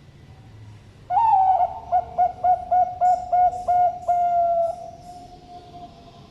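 A zebra dove (Bangkok perkutut) sings one full cooing song with a deep, thick voice. It opens with a first coo, runs into a quick string of about seven short 'kung' notes, and ends on a long held note that fades away.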